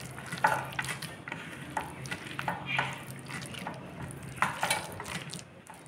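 Bare hand mashing and mixing roasted eggplant with chopped onion on a steel plate: irregular squishes, with fingers and food scraping and tapping on the metal.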